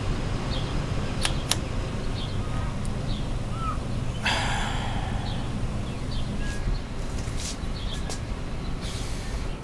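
Steady low outdoor rumble with faint bird chirps. Two sharp clicks just over a second in as the vending machine's selection buttons are pressed, and a short rush of noise about four seconds in.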